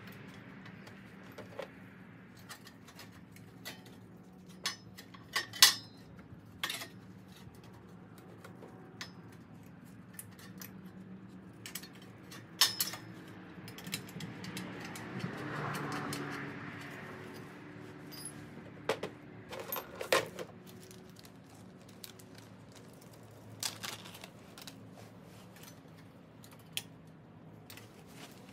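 Scattered sharp metal clinks and taps from sheet-metal parts and tools being handled around the engine's exhaust shield, the loudest about five, twelve and twenty seconds in, over a faint steady hum.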